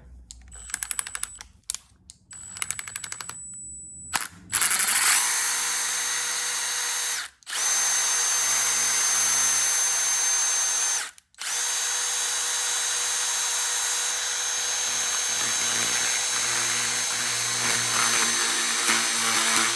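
Impact driver with a flat bit spinning the rotary address dial of a Notifier FST-951 heat detector. It starts with a few faint clicks, then runs at steady full speed with a high whine in three long runs, stopping briefly twice.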